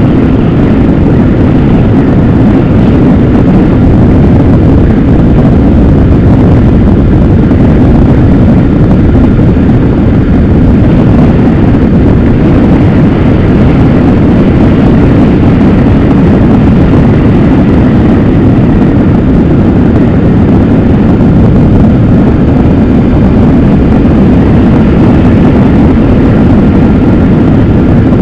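Steady wind rush on the camera microphone mixed with engine and tyre noise from a vehicle travelling at road speed on a highway.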